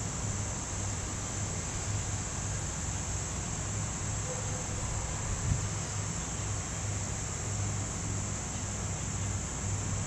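Steady high-pitched insect chorus, crickets or similar summer insects, with a steady low rumble underneath.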